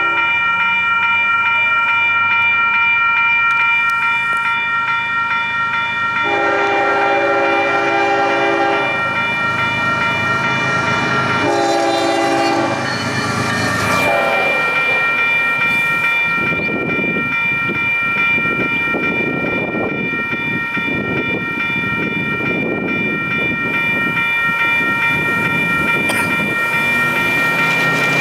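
Grade-crossing bell ringing steadily while a train sounds its horn twice, a long blast about six seconds in and a shorter one about eleven seconds in. From about halfway through, the train passes over the crossing with a rumble and rhythmic wheel clatter on the rails, the bell ringing on throughout.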